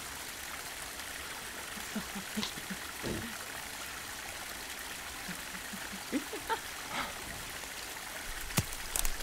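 Steady rushing of running water, like a forest stream, with a few faint short calls or voices and a single sharp click near the end.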